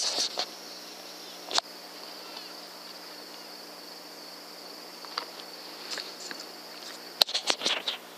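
Night insects keeping up a steady high-pitched chorus over a rural field, broken by a few short clicks and taps, with a quick cluster of louder ones near the end.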